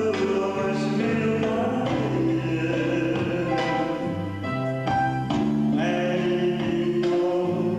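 A person singing a Taiwanese pop song over instrumental accompaniment, with held, stepped melody notes.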